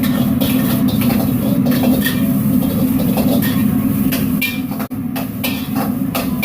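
Wok station cooking: a steady loud roar from the wok burner, with repeated metal clatter and scraping of a utensil against the wok. The sound breaks off for an instant about five seconds in.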